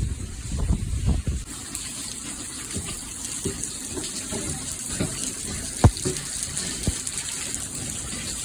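Water running steadily, washing out calcium and sediment from an old water heater, with scattered short knocks, the loudest about six seconds in.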